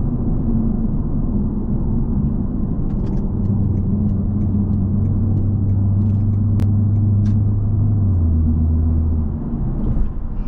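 Straight-piped BMW 540i exhaust droning at a steady, easy cruise, heard from inside the cabin. Its low pitch steps down slightly about eight seconds in as the engine eases off.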